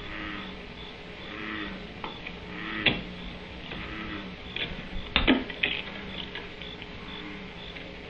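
Barn owls moving about on a wooden nest box: a knock about three seconds in and a cluster of knocks and scuffs about five seconds in, over a steady hum with faint, regular chirping.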